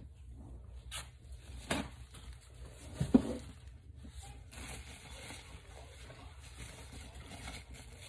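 Light handling noises: a few soft knocks, the loudest about three seconds in, and faint rubbing as lotion is wiped off around the top of a filled container.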